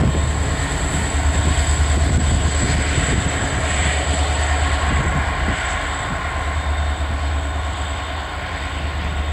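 Diesel-electric freight locomotives running as they pull away, a steady low engine drone that slowly fades toward the end.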